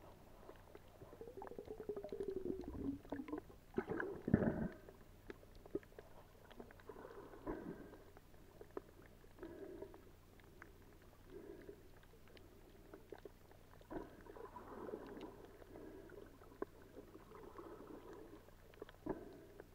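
Muffled underwater sound of shallow sea water sloshing and gurgling around a waterproof camera as it moves over the seabed, with scattered sharp clicks and a louder bump about four seconds in.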